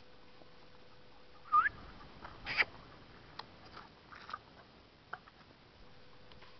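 A playful puppy giving two short high yelps about a second apart, the first rising in pitch, followed by scattered light clicks and scuffs.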